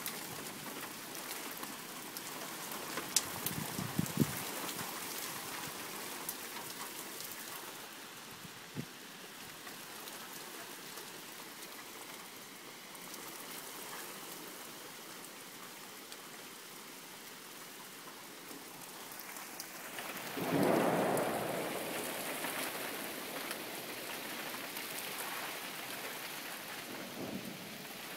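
Steady rain falling during a thunderstorm, with a few sharp taps of drops a few seconds in. About twenty seconds in, a roll of thunder rises and dies away over a couple of seconds.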